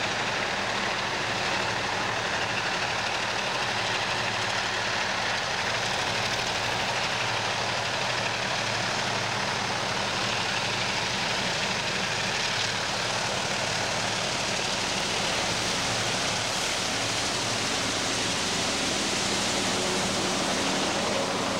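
Two GM G22UB diesel-electric locomotives with EMD two-stroke diesel engines, running under power as they approach and pass close by with a train of wagons.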